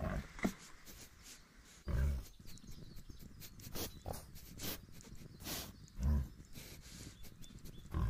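Wild boar grunting: three short, low grunts a few seconds apart, with faint clicks and rustles between them.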